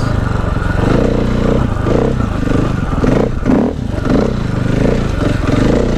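Dirt bike engine running as the bike is ridden along a rough woodland trail, its sound swelling and easing as the throttle changes.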